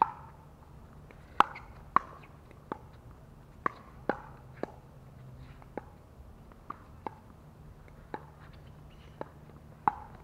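Pickleball paddles hitting a hard plastic pickleball back and forth in a doubles rally: a string of sharp pops, about a dozen in ten seconds at an uneven pace, some loud and some softer.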